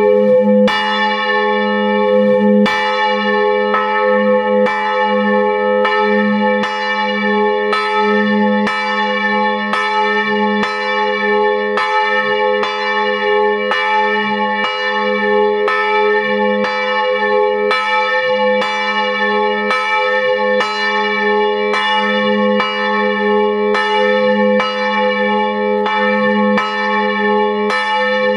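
Bronze church bell swinging in full peal, heard close up in its belfry: the clapper strikes about once a second, steady and even, and the bell's ringing tones hold on without a break between strokes.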